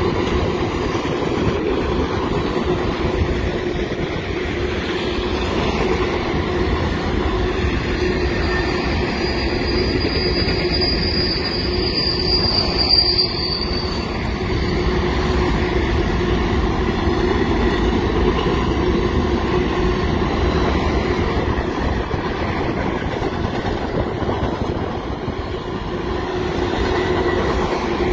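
Union Pacific coal train's hopper cars rolling past at speed with a steady rumble of wheels on rail. About a third of the way in, a high-pitched wheel squeal rises for several seconds and then fades.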